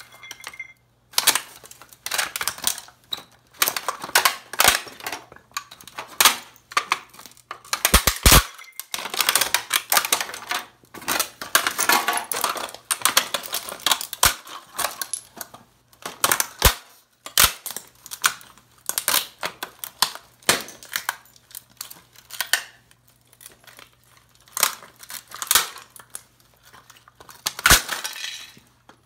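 Heavy boots stomping on and crushing the pieces of an old tube radio: a dense run of cracks, snaps and crunches of a plastic cabinet, perforated hardboard panel and electronic parts being broken and ground against a concrete floor, with brief pauses between bursts.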